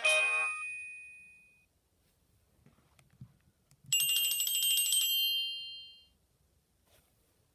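Nokia 2630 ringtones played through a Sony Ericsson W595 phone's speaker. The last chord of one tone rings out and fades over about a second and a half. After a pause with a faint click, a short bright, high-pitched chime sounds for about a second and dies away.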